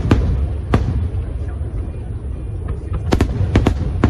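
Aerial fireworks going off: a continuous deep rumble of shell bursts with sharp cracks, two near the start and three close together near the end.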